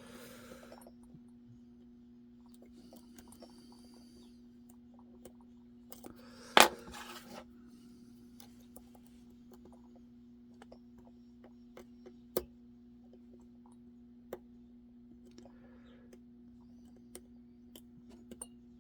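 Lock pick working the pins of an Assa Twin 6K lock: faint scattered metallic clicks and ticks, with one sharp louder click about six and a half seconds in and two smaller ones later, over a steady low hum.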